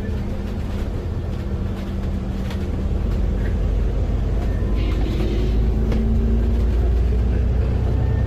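Alexander Dennis Enviro400MMC double-decker bus heard from inside while accelerating: a steady low engine rumble, getting louder, with a whining tone that rises gently in pitch. It is the kind of strange noise under acceleration that the owner cannot explain.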